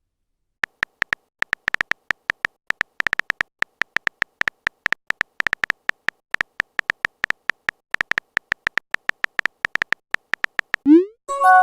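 Text-typing sound effect: a rapid, uneven run of short electronic beeps all at one pitch, a few to several a second. Near the end come a quick rising swoop and then a bright chime.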